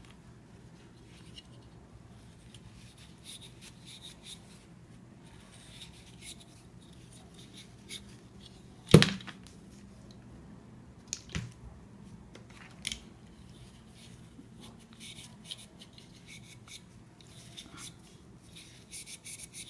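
Small hand-handling noises while the fan motor's shaft is cleaned and oiled: light scratching and rubbing, with one sharp knock about halfway through and a few smaller clicks soon after.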